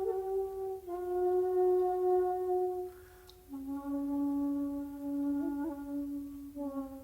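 Solo shakuhachi, the end-blown bamboo flute, holding long notes that step down in pitch. There is a short breathy pause about three seconds in, and a brief ornamental flick near the end of the longest, lowest note.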